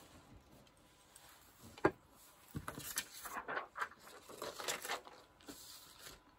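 Craft supplies being handled on a tabletop: scattered light taps and short paper rustles, starting about two seconds in.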